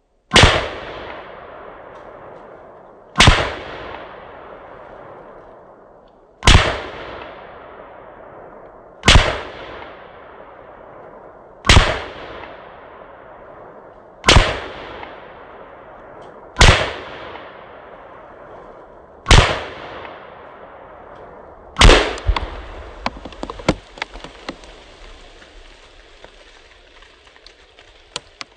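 Nine gunshots about every two and a half to three seconds, each followed by an echo that dies away. The last, about twenty-two seconds in, sets off an explosive charge in a pumpkin target: a louder blast, then about two seconds of scattered small pops and clatter.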